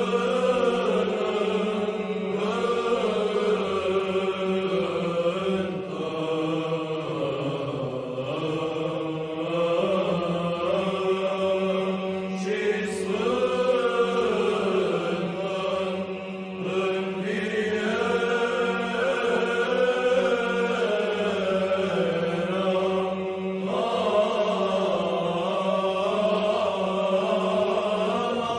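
Orthodox church chant: voices singing a slowly moving melody over a steady held drone note.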